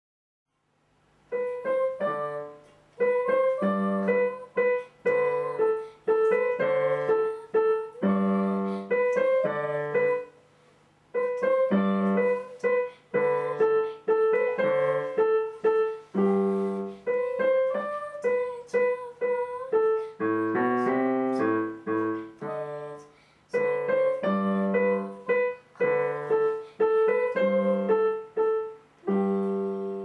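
Piano played by a child: a simple beginner's lesson piece of short melodic phrases, with brief pauses between them.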